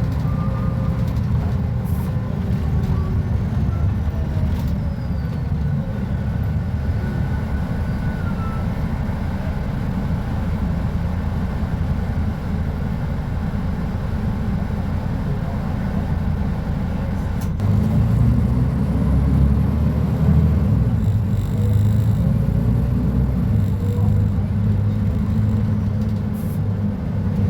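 Diesel engine of a Mercedes-Benz O500UA articulated bus with a Voith automatic gearbox, running with a steady low drone whose pitch shifts as the revs change. A click comes about two-thirds of the way in, and from then on the engine is louder.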